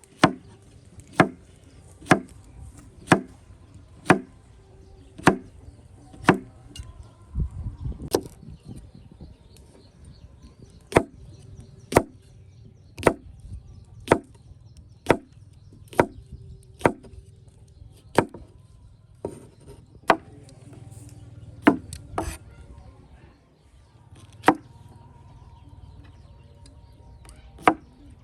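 Knife chopping on a wooden cutting board, one sharp stroke about every second.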